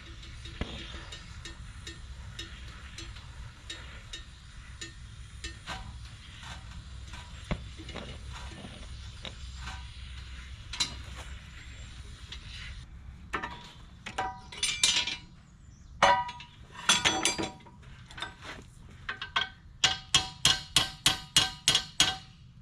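Hammer blows on steel stock: a few loud ringing strikes about halfway through, then a quick even run of about ten blows, some four a second. Before them, a steady low hum with faint scattered ticks.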